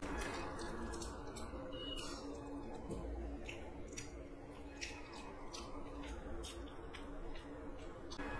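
Close-miked eating sounds: crisp, irregular crackles and crunches as crunchy fried shreds are worked by hand into rice and chewed.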